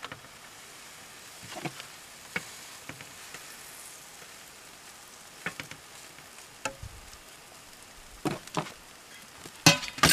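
A tortilla frying in butter in a nonstick frying pan, with a steady faint sizzle. A few light taps and clicks of a plastic spatula against the pan come through it, and a louder clatter comes near the end.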